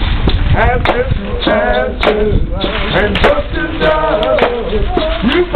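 A group of voices chanting together, the chant carried on with pitched, sung phrases, with scattered sharp knocks among the voices.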